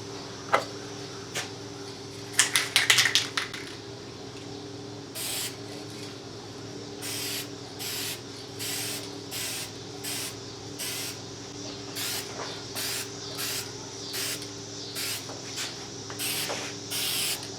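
Aerosol can of Dupli-Color Trim and Bumper black paint spraying in about a dozen short, half-second bursts, laying on light coats on plastic trim. A brief rattle comes about three seconds in, and a steady low hum runs underneath.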